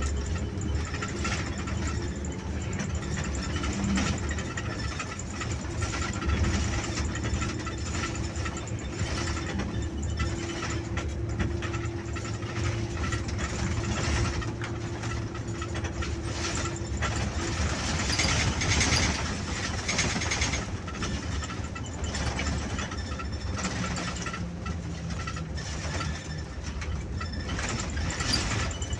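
Bus engine running under way with road noise, heard from the driver's seat, with frequent small rattles and a steady hum over the engine for a stretch in the first half.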